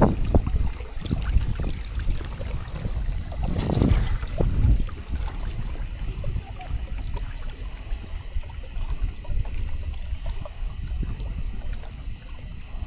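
Water lapping and trickling against a sailing kayak's hull, with irregular small splashes over a low wind rumble on the microphone. The splashing swells briefly about four seconds in.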